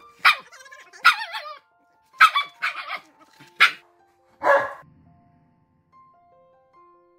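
Husky and malamute barking and giving wavering, howl-like 'talking' calls, about six short calls in the first five seconds, begging at the counter for food. Soft background music with a few held notes follows.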